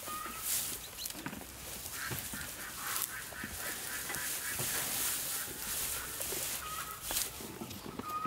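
Birds calling: short chirps at the start and near the end, and a run of quick repeated notes about two to three seconds in, over scattered knocks and clicks.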